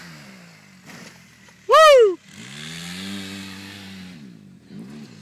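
Polaris RZR side-by-side engine running, its pitch rising, holding, then falling away as it takes the jump. About two seconds in, a short, very loud cry close to the microphone, its pitch sweeping up and back down.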